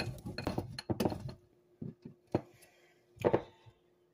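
A block of Parmesan cheese scraped down a stainless steel box grater in quick strokes for about the first second and a half. A few separate clinks and knocks follow as the grater shifts against the glass bowl it stands in.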